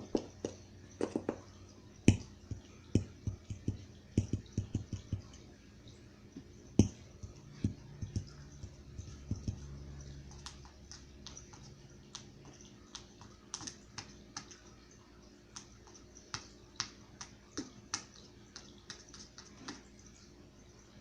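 Three-way Technics SB-A33 twin-woofer speaker giving off irregular clicks and pops, many with a low thump in the first few seconds, over a faint steady hum.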